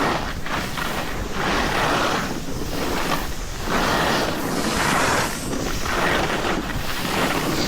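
Snowboard edge scraping over packed snow in rhythmic swells about once a second as the board turns, with wind rushing over the microphone.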